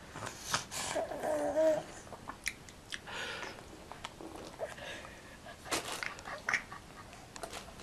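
A baby's brief squeaks and grunts and wet mouth smacks while sucking on a lemon slice, the sourness making him grimace.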